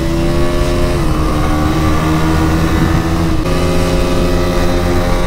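KTM Duke 200's single-cylinder engine running steadily while the motorcycle cruises at around 65 to 77 km/h, with a constant rush of road and wind noise. The engine note dips slightly about a second in and again a little past three seconds.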